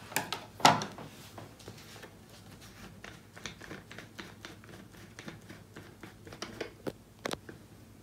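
Hands handling a plastic toner refill bottle and its screw-on nozzle cap: a string of small clicks, taps and rustles, with a sharper knock about a second in and another near the end.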